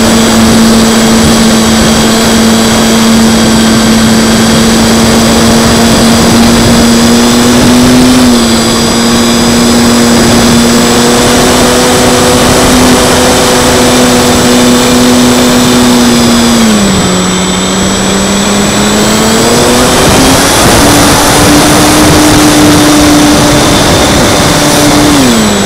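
ParkZone P-47 RC model's electric motor and propeller whining steadily in flight, heard close up from a camera on the airframe, with wind rush underneath. The pitch drops about two-thirds of the way through, climbs back a few seconds later to a slightly higher note, and drops again near the end.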